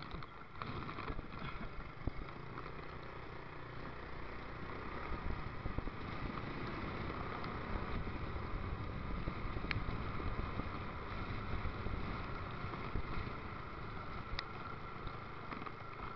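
Motorcycle riding along a road: steady engine and road rumble with wind noise, muffled by the action camera's waterproof housing.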